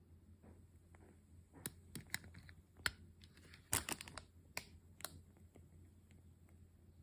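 Wooden-wick candle burning with faint, irregular crackles and pops, a quick cluster of them about four seconds in.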